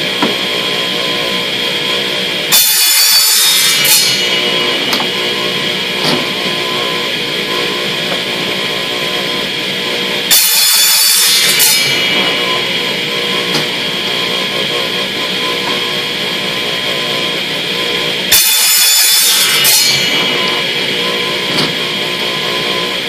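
Background music with guitar, broken three times by a loud burst of hissing noise lasting about a second and a half, roughly eight seconds apart: a Ridgid miter saw cutting plastic pipe.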